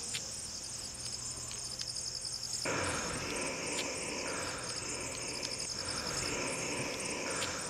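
Crickets chirping steadily at night as a continuous high pulsing trill. A broad rushing hiss joins about two and a half seconds in.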